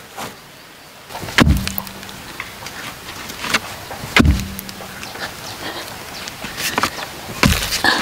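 A wooden pole rammed down into dry, hard dirt to dig a fence-post hole: three heavy thuds about three seconds apart, with small knocks and scattering soil between them.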